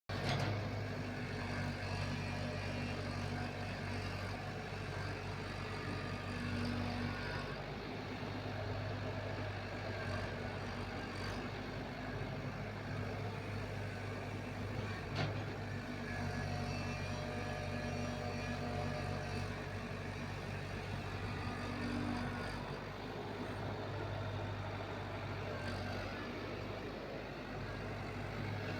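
Tata Hitachi excavator's diesel engine running steadily under work, its low note easing off and picking up again a few times. A single sharp click sounds about halfway through.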